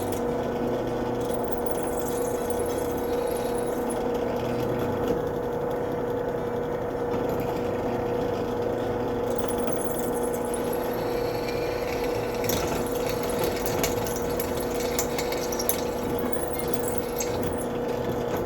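Electric drill running steadily with a constant whine, drilling out the broken-off tip rod stuck in a soldering iron; from about twelve seconds in, the bit scrapes and chatters as it cuts into the metal.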